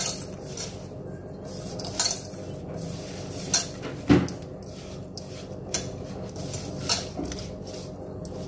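Hands crumbling jaggery lumps into grated coconut in a stainless steel pot, a soft rubbing with sharp metallic clinks against the pot every second or so.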